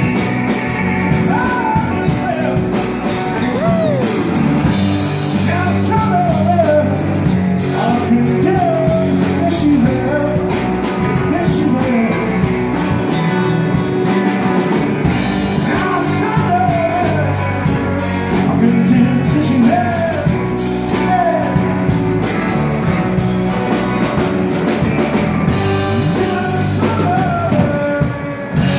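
Live band playing a slow minor blues on electric guitars and a drum kit, with a man singing lead and notes that bend up and down over the steady backing.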